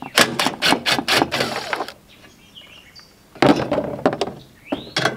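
Makita 18V cordless impact driver with a half-inch socket hammering as it backs out the bolts that hold a plastic tractor toolbox. It runs in two bursts of rapid rattling impacts, with a pause of about a second and a half between them.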